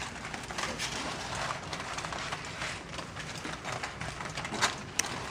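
Aluminium foil crinkling and crackling as it is crumpled and pressed by hand over a paper plate and cup, with two sharper crackles near the end.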